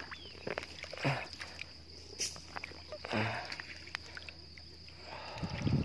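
Steady high-pitched chirring of crickets or other insects, with short bursts of rustling and splashing as a hooked fish is handled in shallow water among grass, three times, the loudest near the end.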